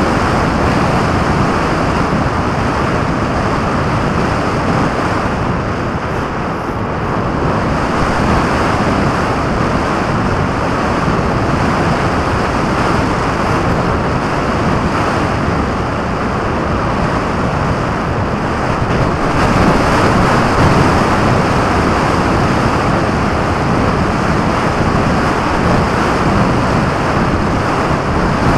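Wind rushing over the microphone of a camera mounted under the wing of a radio-controlled model plane in flight: a loud, steady roar of airflow that dips a little and swells again.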